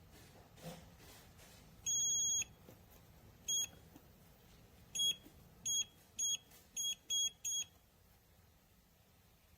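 A biometric pistol safe's electronic beeper sounding a high single-pitched beep. There is one long beep about two seconds in, then a run of short, unevenly spaced beeps like keypad presses.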